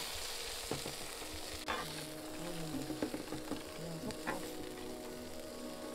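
Small dried anchovies and halved shishito peppers sizzling in oil in a nonstick frying pan as they are stir-fried with a spatula, with scattered clicks and scrapes of the spatula against the pan.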